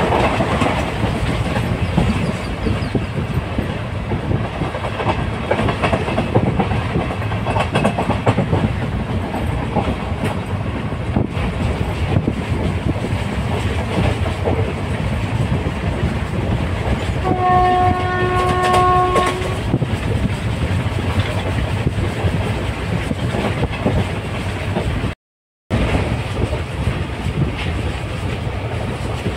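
Train running along the track with a steady rumble and clickety-clack of wheels on rails. A little past the middle, the train horn sounds once for about two seconds. Near the end the sound cuts out completely for half a second.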